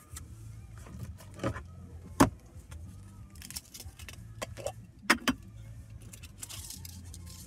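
Small hard objects being handled and set down on the hard plastic fold-down shifter table: a plastic herb grinder and a glass jar, giving scattered clicks and knocks, the loudest about two seconds in and a quick pair about five seconds in.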